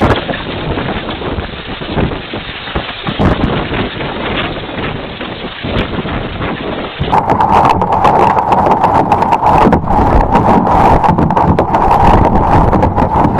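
Hailstorm: wind and falling hail make a steady rushing roar. About seven seconds in this gives way to a dense, rapid clatter of hailstones striking hard surfaces, over a steady tone.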